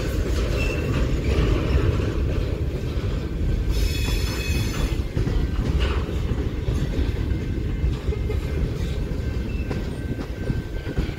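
Freight train of covered hopper cars rolling past: a steady rumble of steel wheels on rail, with a brief high-pitched wheel squeal about four seconds in.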